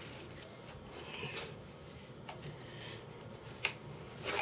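Faint rustling and scraping of a cardboard box being handled while its packing tape is worked open, with a sharp click a little past three and a half seconds in.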